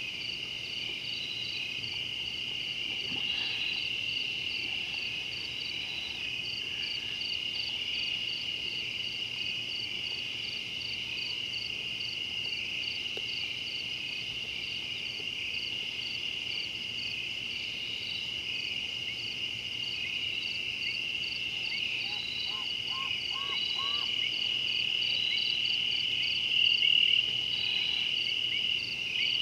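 Steady, shrill chorus of crickets and other insects, with a regular pulsing chirp above the continuous trill. A few short chirps come about three quarters of the way through.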